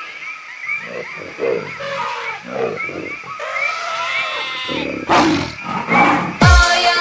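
Jungle animal sound effects: a high chirp repeating about twice a second over lower, uneven animal calls. A loud burst comes about five seconds in, and near the end a deep falling sweep leads into electronic dance-pop music.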